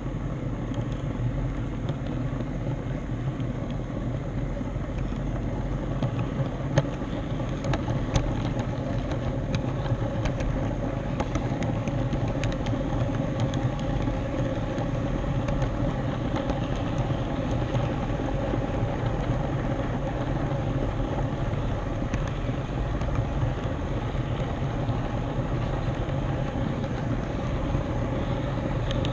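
HO scale model train rolling along the track, a steady rumble of wheels on the rails, with a couple of sharp clicks about seven and eight seconds in.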